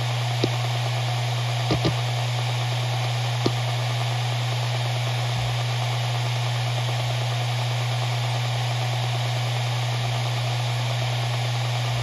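Maxtor MaXLine Pro 500 7200 rpm hard drive spinning, a steady hum with a hiss over it. A few single head-seek clicks come in the first few seconds: one about half a second in, two near two seconds, and one at about three and a half seconds. After that only the steady spin remains.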